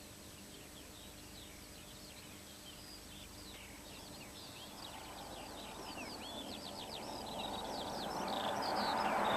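Small birds calling in many quick chirps and twittering notes, more of them toward the end. A steady rushing noise of a vehicle approaching builds up through the second half and grows loudest near the end.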